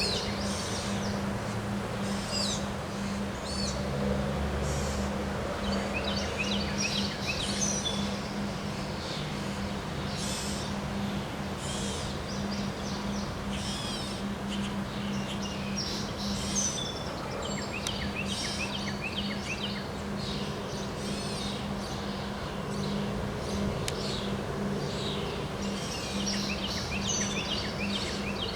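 Several birds chirping in repeated clusters of short, high calls over steady wind noise, with a steady low hum underneath.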